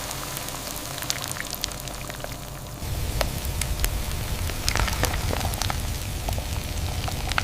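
Hot sugar syrup bubbling with a steady sizzle and many scattered sharp pops and crackles. A low rumble joins about three seconds in.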